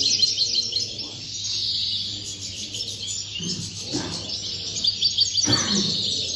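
Caged European goldfinches singing without a break in fast, twittering runs of high chirping notes.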